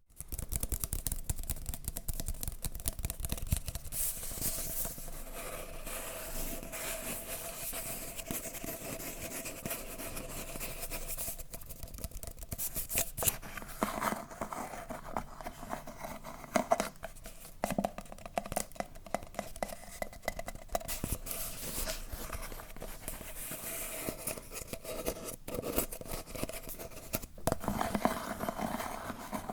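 Close-miked ASMR trigger sounds: hands scratching, rubbing and crackling an object in a dense, continuous stream of small clicks and scrapes, with a faint steady hum underneath.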